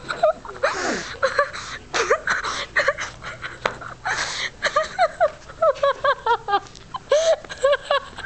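Girls laughing and giggling hard in short repeated bursts, with breathy gasps between.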